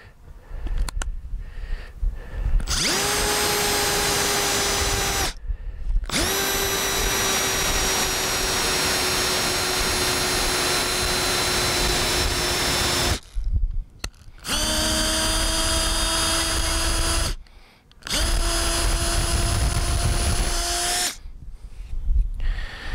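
Milwaukee cordless drill boring a long bit into the end of a wooden fence post. The motor whines steadily in four runs of a few seconds each, stopping briefly between them.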